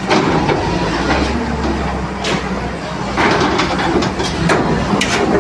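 Heavy machine's engine running with a steady low hum, under repeated crunching and clattering knocks of debris, as of a bulldozer demolishing a brick house.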